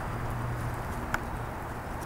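CRRC Pro GP50R 50cc single-cylinder two-stroke gas engine running steadily at high speed, around 7400 rpm, turning a Mejzlik 22x8 carbon propeller; the engine is new, with only 32 oz of fuel run through it. A single sharp click sounds about a second in.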